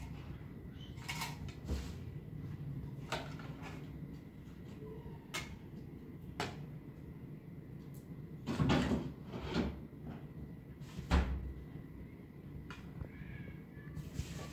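Scattered knocks and clatters of objects being handled, about ten separate strikes, with the loudest cluster around nine seconds in and another sharp knock about eleven seconds in.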